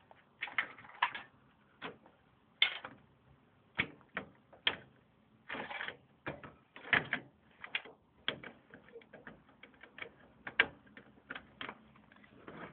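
Plastic and metal clicks, knocks and short scrapes from a CPU heat sink and fan being worked into place on a motherboard in a desktop computer case. The knocks come irregularly, one to three a second, some sharper than others.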